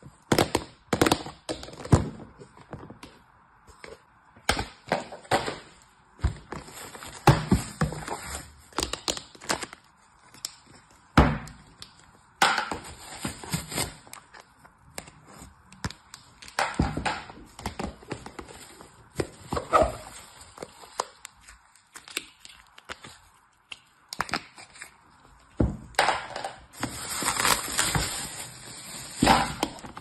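Hands opening a hard plastic storage box and handling what is inside: irregular knocks and clicks of plastic against plastic, with longer stretches of plastic bags crinkling.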